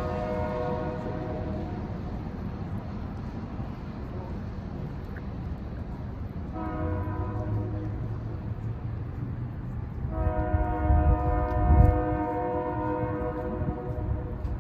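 Locomotive air horn sounding several notes at once: the end of one blast at the start, a short blast about six and a half seconds in, then a long blast from about ten seconds in, over the low rumble of the passing train that peaks near the end.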